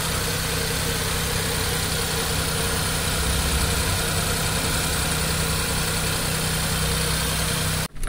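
Small Suzuki petrol engine idling steadily, heard with the bonnet open; it cuts off suddenly near the end.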